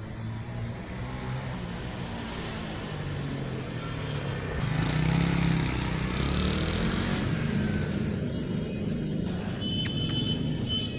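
Motor vehicle running on the road, a steady low rumble that swells as it passes about halfway through and then fades.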